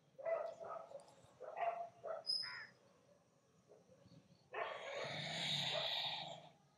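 A crow caws several times in quick succession in the first couple of seconds. About four and a half seconds in comes a long, audible out-breath lasting about two seconds, the yoga exhale as the back rounds to press away from the mat.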